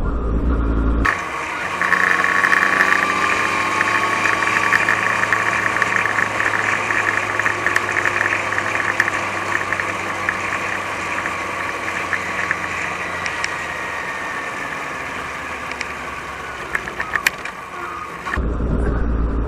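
Yamaha FZ6 Fazer's inline-four engine, fitted with Scorpion exhaust cans, running under acceleration with wind rush, picked up by an action camera's microphone under a furry wind muffler. The engine note rises over several seconds, then falls away slowly.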